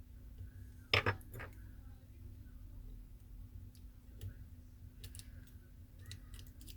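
Light clicks and taps of small tools against an opened iPhone X's internal parts during disassembly, a sharp pair of clicks about a second in and fainter scattered clicks after.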